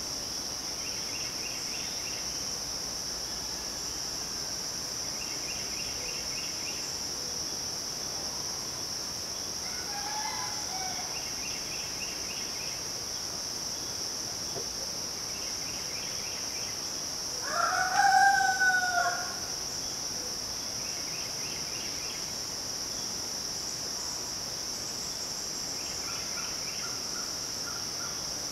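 A rooster crows once, loud and about a second and a half long, about two-thirds of the way through, and a fainter crow sounds about ten seconds in. Underneath runs the steady high-pitched drone of midsummer insects, with short chirping phrases repeating every few seconds.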